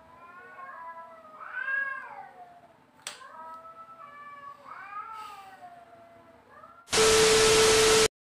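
A cat meowing again and again, each meow rising and falling in pitch. Near the end, a loud burst of TV static with a steady tone in it lasts about a second and cuts off sharply.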